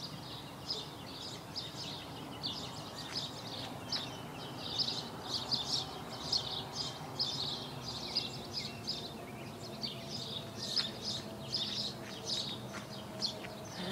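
Morning chorus of many songbirds, dense quick high chirps and twitters overlapping throughout, over a steady low background rumble. A faint low drone comes in during the second half.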